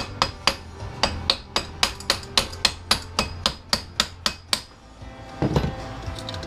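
Hammer striking the metal of a doorknob in rapid, even blows, about four a second, breaking it apart to free the brass core from the steel; the blows stop near the end and a short scraping clatter follows.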